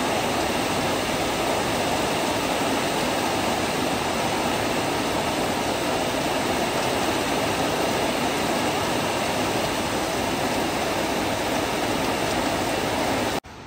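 Steady rushing of water, a loud even noise that cuts off abruptly near the end.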